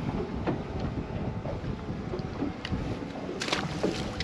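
Wind buffeting the microphone out on the water, a steady rushing noise with a few faint clicks and knocks, the brightest cluster about three and a half seconds in.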